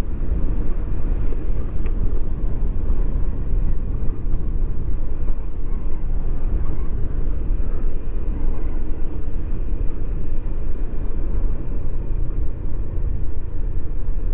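Steady wind rush buffeting the microphone, with the road and running noise of a Yamaha X-Max automatic scooter riding downhill.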